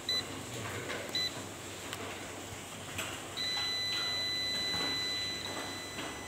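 Seaward Solar Power Clamp meter beeping: two short high beeps about a second apart, then one steady high-pitched beep lasting about two seconds, the continuity buzzer sounding with its test leads shorted together.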